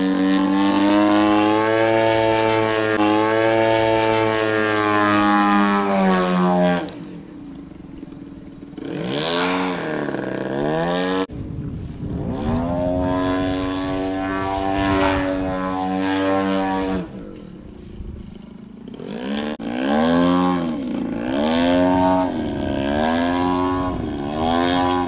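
Engine of a radio-controlled aerobatic model airplane in flight, its pitch rising and falling with throttle and passes. It drops low twice, about a quarter of the way in and again about two-thirds through, and swings up and down rapidly near the end.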